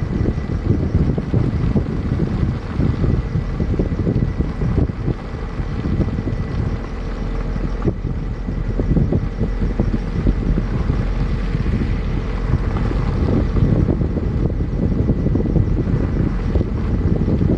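Wind buffeting the microphone over the low rumble of a vehicle moving along a road, uneven and gusty throughout.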